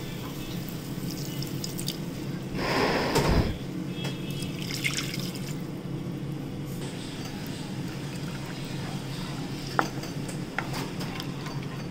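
Milk poured into a hot nonstick pan of butter-and-flour roux, with a splash lasting about a second, about two and a half seconds in. Then a silicone spatula stirring the sauce, with a couple of light taps near the end.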